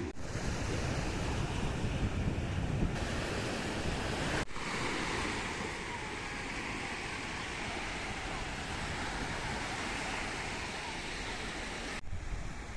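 Sea waves washing on a beach, with wind buffeting the microphone, heaviest in the first few seconds. The noise breaks off abruptly twice.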